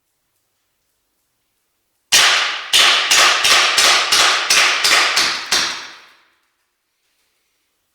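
HFC Colt 1911 green-gas blowback airsoft pistol firing about a dozen shots in quick succession, roughly three a second, each a sharp crack as the slide cycles, with a ringing tail that fades after the last shot.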